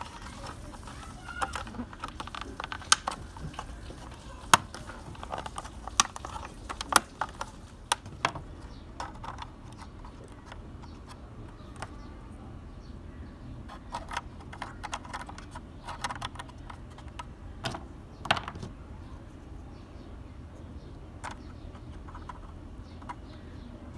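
Irregular light clicks and taps of small toy-car parts being handled, some in quick clusters, over a steady low hum.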